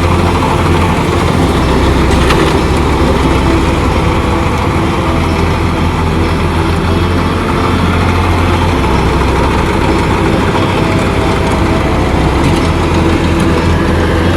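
Engine of a rice harvesting machine running steadily, its low hum shifting pitch a few times.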